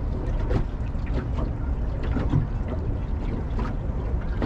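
Steady, low wind rumble on the microphone over water slapping against a small fishing boat's hull, with a few faint scattered ticks.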